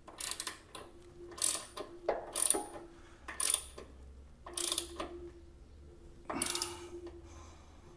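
12 mm socket ratchet wrench clicking in short bursts, about one a second, as it is worked back and forth to tighten a bolt on a motorcycle saddlebag rack.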